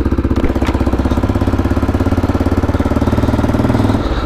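1996 Aprilia Pegaso 650's Rotax five-valve single-cylinder engine running at low revs as the bike rolls slowly, a steady pulsing beat, heard from inside the rider's helmet.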